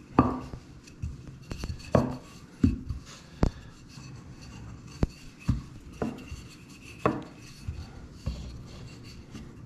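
A wooden rolling pin rolling out pizza dough on a stone benchtop, with about a dozen sharp knocks at uneven intervals as the pin bumps against and is set down on the stone.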